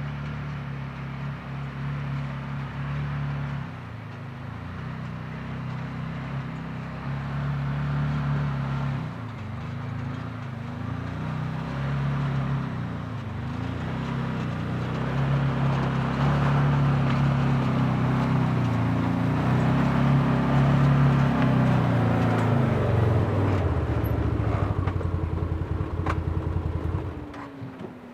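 Vehicle engine running while driving, its pitch wavering with the throttle and at its loudest past the middle. Near the end the engine note falls and the sound dies away as the vehicle slows to a stop.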